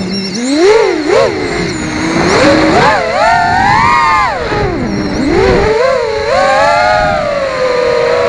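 FPV freestyle quadcopter's motors and propellers whining, the pitch rising and falling quickly with the throttle, then settling into a steadier hum near the end.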